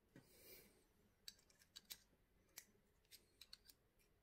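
Faint, sparse metallic clicks as a small flat screwdriver tip picks at a brass mixer-tap cartridge to prise a part out of it, with a soft brief rustle of handling near the start.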